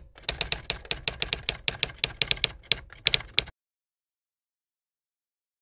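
Typewriter keystroke sound effect: a quick, uneven run of sharp key clacks, roughly six a second, that stops abruptly about three and a half seconds in.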